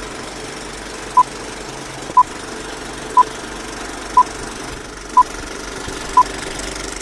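Countdown beeps, six short high tones about one second apart, over a steady mechanical clatter.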